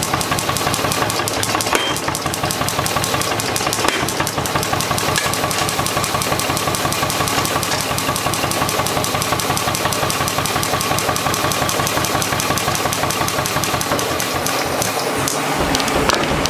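Mechanical forging hammer (power hammer) running with a fast, even knocking rhythm.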